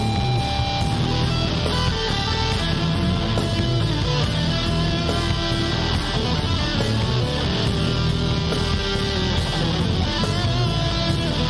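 Instrumental rock background music led by electric guitar, playing continuously.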